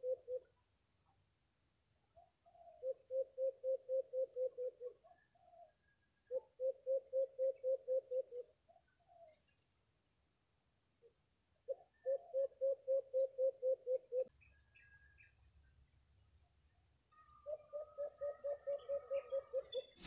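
White-eared brown dove calling: four runs of quick, evenly spaced low coos, each run about two seconds long. A steady high-pitched insect drone runs underneath.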